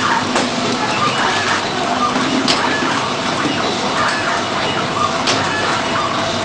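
Powder packing machine running: steady mechanical noise, with a sharp click twice, a few seconds apart.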